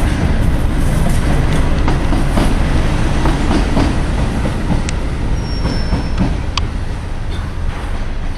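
A train running past on the track, its loud rumble dotted with wheel clicks over the rail joints and a brief high wheel squeal about midway, easing off slightly towards the end.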